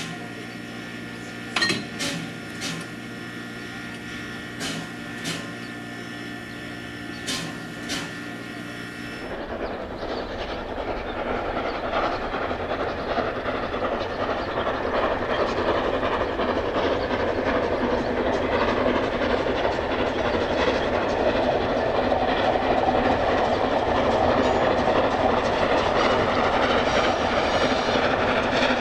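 For the first nine seconds, a handful of sharp metallic clanks from work at the coupling between a steam locomotive and its coach, over a steady hum. Then the running noise of a Swiss E 3/3 steam tank locomotive hauling its train, growing steadily louder toward the end.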